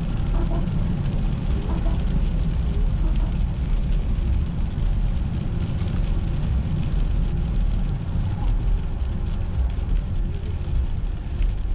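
Car driving on a wet road: a steady low rumble of engine and tyres with a haze of tyre hiss over it.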